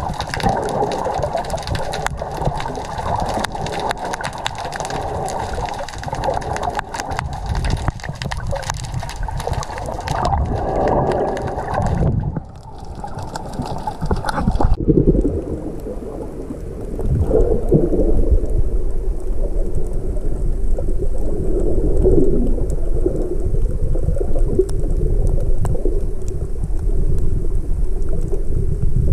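Underwater sound through an action camera held beneath the sea surface: muffled gurgling and sloshing of seawater. A dense crackle of fine clicks runs for about the first twelve seconds, then the sound turns duller and lower.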